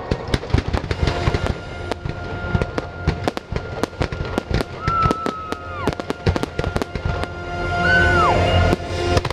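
Fireworks show: rapid, irregular bangs and crackles of shells and comets bursting, with the show's music playing underneath.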